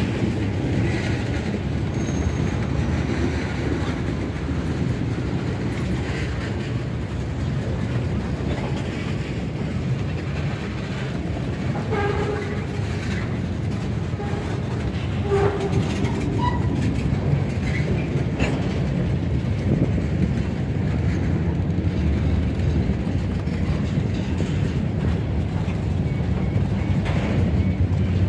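Freight cars (tank cars and covered hoppers) rolling past close by: a steady rumble of steel wheels on rail with clickety-clack over the rail joints. A few brief high squeals come partway through.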